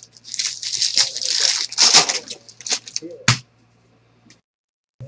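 Trading card pack wrappers crinkling and tearing as they are ripped open by hand, ending in a sharp click about three seconds in. A low steady hum runs underneath.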